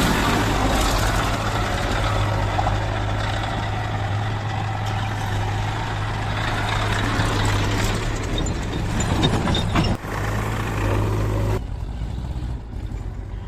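Heavy diesel engine running steadily under load with a dense mechanical noise. About three-quarters of the way through, the engine hum drops off abruptly and the sound turns quieter.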